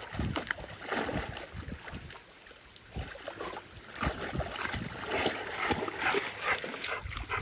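A dog splashing about in lake water, in irregular splashes.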